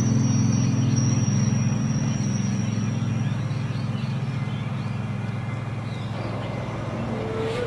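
A steady low mechanical drone, like a vehicle engine, slowly growing quieter, with a new steady higher tone joining near the end.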